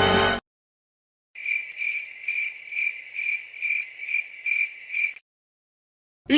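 Crickets chirping in a steady rhythm of about two chirps a second, after a burst of music cuts off abruptly: the stock crickets sound effect used as an awkward-silence gag. The chirping stops suddenly.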